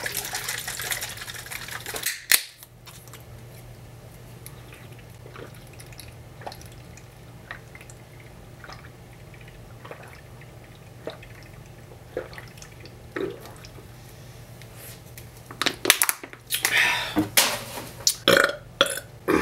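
A person gulping down a can of chocolate drink in one go, with faint swallowing clicks every second or so after a sharp crack about two seconds in. Near the end comes a long, loud burp.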